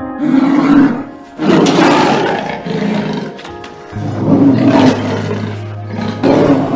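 Big-cat roars, about five in a row, laid over an intro music jingle.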